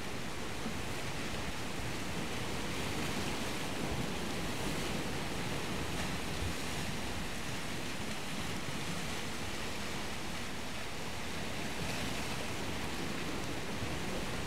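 Steady wash of sea surf, a continuous rushing noise that swells and eases gently.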